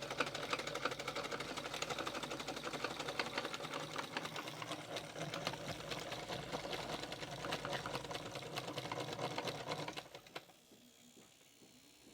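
Sewing machine driven by a 12-volt 775 DC motor through a pulley belt, running fast: a rapid clatter of the needle mechanism over the motor's steady hum. It stops about ten seconds in.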